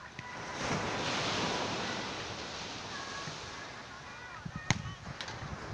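Steady rushing of surf, with wind on the microphone. About three-quarters of the way in there is one sharp smack, and a fainter one follows half a second later.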